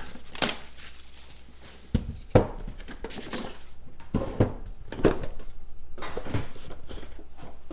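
Trading card box being unpacked by hand on a table: a cardboard outer sleeve is slid off and a red lidded inner box is lifted out and set down, giving a series of separate knocks and taps with faint rustling between them.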